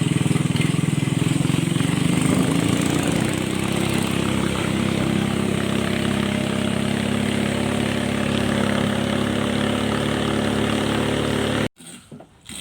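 Boat engine running steadily. Its pitch eases down slightly a few seconds in, then holds, and the sound cuts off abruptly near the end.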